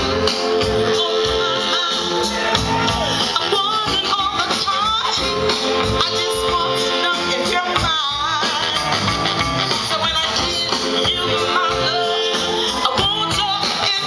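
A live soul band playing a song, with drum kit and electric guitars, heard from within the audience.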